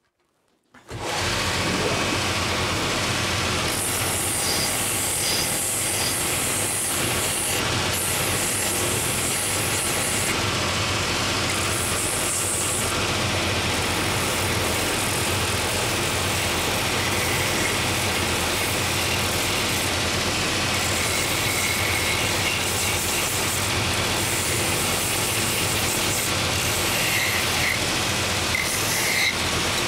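Purpose-built last-making belt sanding machine running, its coarse 24-grit belt grinding a wooden shoe last; the sound starts about a second in and holds steady, with a rough hiss that swells and drops every few seconds as the wood works against the belt.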